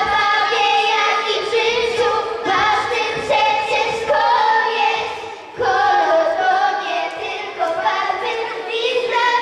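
A group of children singing a song together into microphones, with a brief pause between phrases about halfway through.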